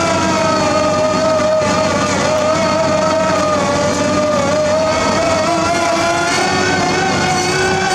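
Heavy construction machine's diesel engine running steadily, with a pitched whine that holds level and then climbs slightly near the end.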